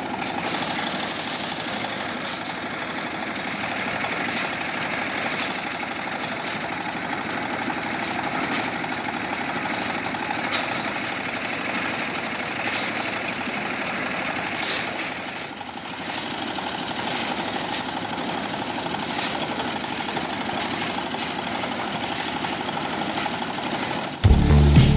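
Small stationary engine running steadily at a concrete mixer, with scattered scrapes and clicks of shovels working sand and gravel. Loud music cuts in just before the end.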